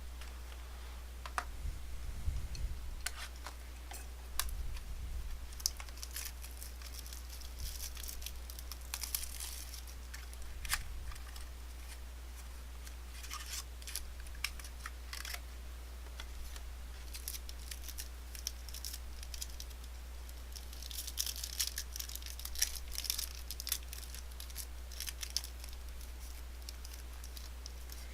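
Trading card pack being torn open and its cards handled: irregular tearing, crinkling and rustling with sharp little clicks, coming in clusters, over a steady low electrical hum.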